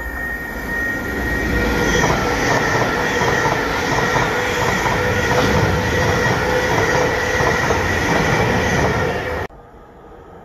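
Electric passenger train running through the station at speed without stopping: a loud, steady rush of wheels on rail with a thin squeal, building over the first couple of seconds as it nears. The sound cuts off abruptly near the end, leaving a much quieter background.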